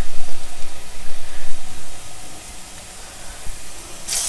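Urad dal vadais deep-frying in hot oil: a steady sizzling hiss, louder for the first two seconds and then quieter. Just before the end, a short, louder sizzle flares up as a fresh portion of batter is dropped into the oil.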